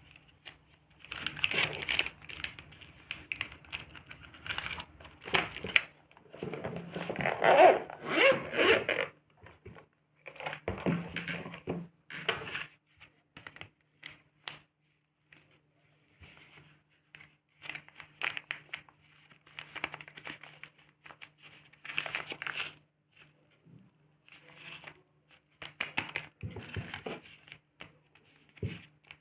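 Rustling and crinkling from hands handling and moving small craft items, in irregular bursts that are loudest a few seconds in. A faint steady low hum runs underneath.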